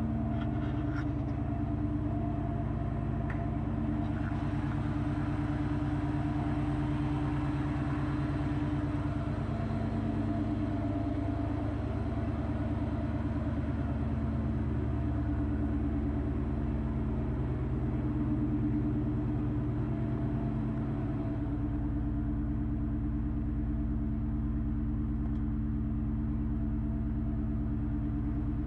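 Ford Mustang Mach 1's V8 idling steadily. This engine knocks once warmed up to normal operating temperature.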